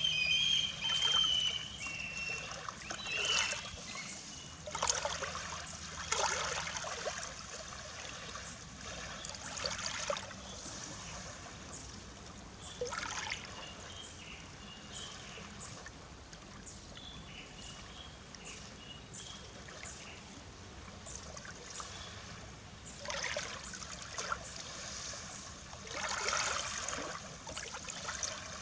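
Small sea waves lapping and washing on the shore, a soft wash arriving every few seconds at uneven intervals. A bird chirps briefly in the first second or so.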